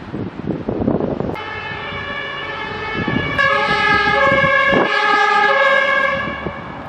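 Fire engine's two-tone siren, the German Martinshorn, starting about a second and a half in and growing louder about two seconds later, alternating between a lower and a higher note, each held for under a second. Wind gusts buffet the microphone before the siren starts.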